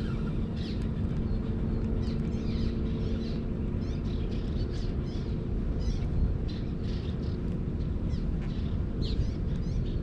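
Small birds chirping, many short calls scattered throughout, over a steady low rumble.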